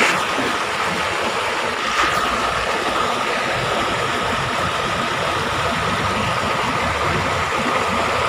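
Steady rush of running stream water, with a faint steady high tone behind it and one small knock about two seconds in.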